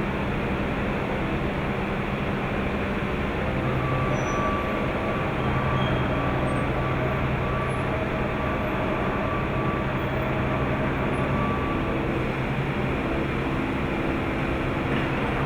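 Excavator carrying a hydraulic breaker, running steadily with a constant mechanical noise and an engine hum that strengthens about four seconds in.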